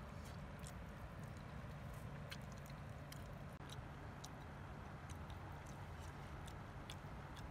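A person chewing and eating from a spoon: scattered soft mouth clicks and smacks over a steady low background rumble, with a momentary dropout about three and a half seconds in.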